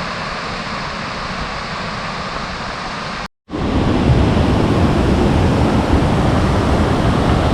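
Steady rush of falling water. About three seconds in it cuts out for a moment and comes back louder, with a heavier low rumble.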